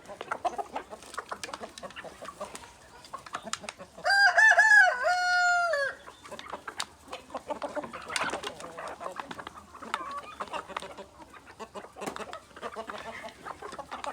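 A rooster of a kampung–Bangkok crossbred flock crows once about four seconds in, a loud call of about two seconds in two parts. Softer clucking from the flock goes on before and after.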